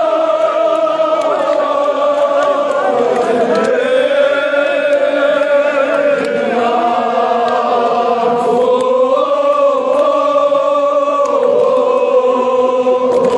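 A large crowd of men chanting a Kashmiri noha (a mourning lament) together in unison, many voices holding long lines that slowly rise and fall in pitch.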